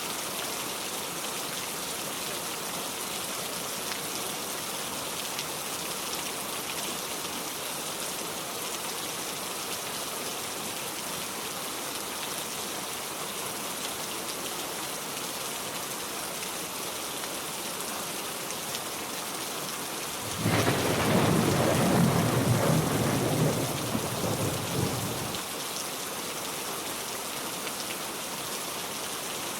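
Heavy rain falling in a steady hiss. About two-thirds of the way through, a loud low rumble of thunder breaks in suddenly and lasts about five seconds before stopping.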